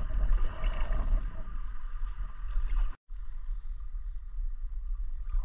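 Water gurgling and lapping against a kayak's hull as it moves down a river, over a steady low rumble. The sound drops out for an instant about three seconds in and comes back quieter.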